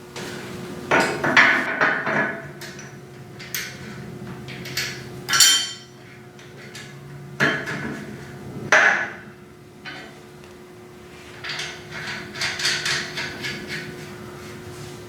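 Metal tools and parts knocking and clanking in irregular clusters of sharp, hammer-like taps, over a steady low hum.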